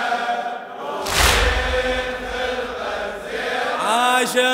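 Congregation of men chanting a Shia latmiyya lament in unison, with one loud collective chest-beating strike (latm) about a second in. A lead reciter's voice comes in near the end.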